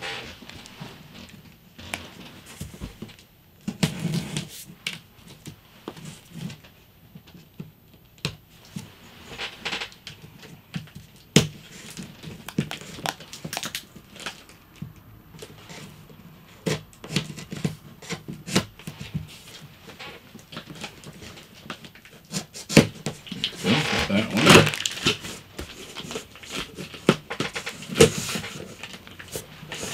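Hands working a large cardboard shipping box open: scattered clicks, scrapes and rustles of cardboard and packing tape, with a longer burst of louder rustling and scraping late on.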